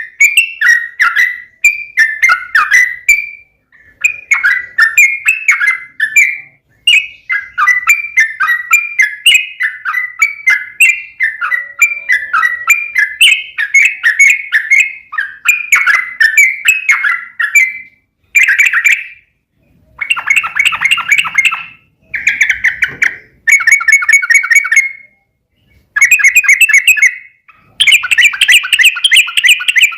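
Yellow-vented bulbul (trucukan) singing loud, bubbly chattering phrases of rapid notes, long unbroken strings at first, then shorter separate bursts with brief pauses between them in the later part.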